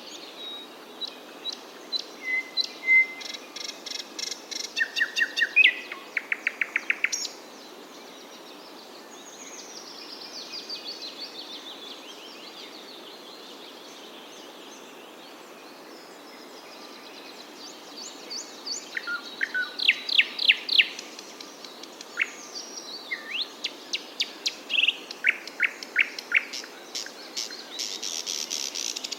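Small songbirds chirping and singing: runs of quick, sharp, high-pitched notes and fast trills over a steady background hiss. There is a quieter stretch in the middle with only softer calls, then the chirping picks up again.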